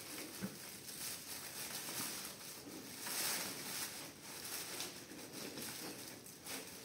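Long-haired dachshund nosing and digging in a cloth toy bag, the fabric rustling and crinkling as it rummages, with a louder burst of rustling about three seconds in.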